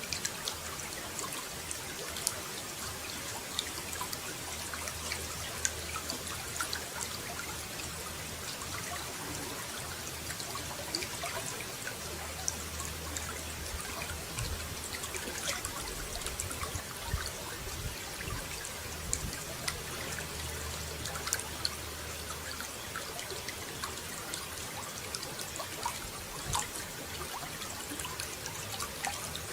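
Running water trickling and splashing steadily, with many small droplet ticks. A faint low hum rises and fades in the middle.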